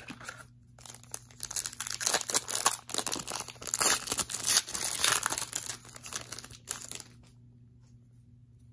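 Wrapper of a Donruss Optic basketball card pack crinkling as it is torn open and handled, a dense rapid crackle that stops about seven seconds in.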